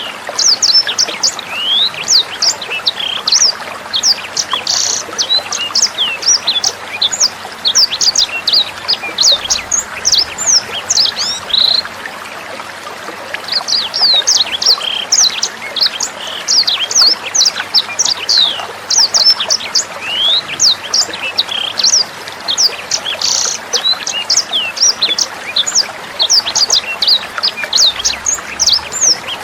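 Sanger birds chirping in a rapid, dense stream of sharp high notes over steadily trickling water. The chirping stops for about two seconds near the middle, leaving only the water, then resumes.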